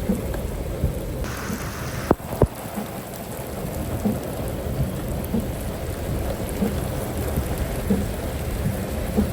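Rain falling steadily, with a constant low rumble underneath and two sharp clicks about two seconds in.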